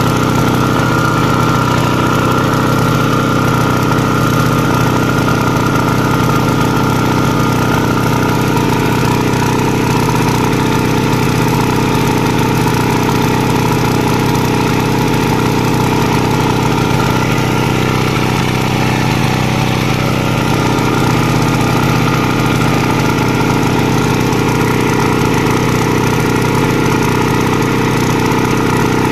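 Honda petrol water pump's small four-stroke engine running steadily at constant speed, with an unbroken low hum.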